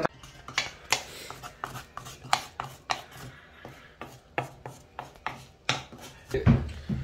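Wooden spatula scraping and knocking against the inside of a stone mortar, scooping out pounded shallots, in irregular scrapes and sharp taps about every half second.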